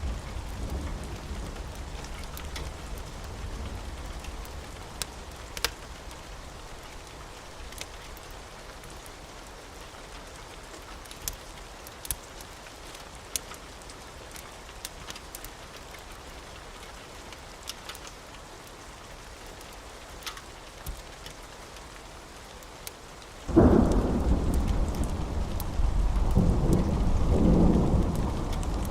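Steady rain falling, with scattered sharp ticks. About 23 seconds in, a thunderclap breaks and rolls into a loud, deep rumble that goes on to the end.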